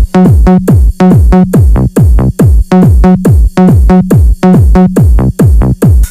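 Loud electronic dance remix used as a bass test track: a fast, even run of deep kick-drum hits, each dropping in pitch, over a steady held note.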